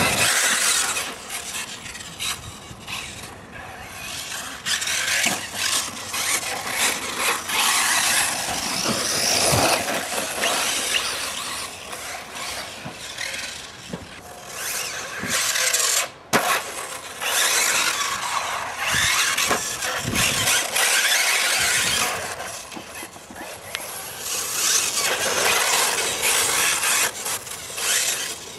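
Brushless electric RC cars running laps on a track, their high-pitched motor whine and tyre squeal swelling and fading as they pass. The sound breaks off briefly about sixteen seconds in.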